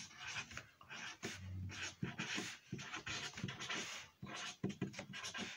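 Felt-tip marker rubbing across paper in short, irregular strokes, with breathing close to the microphone.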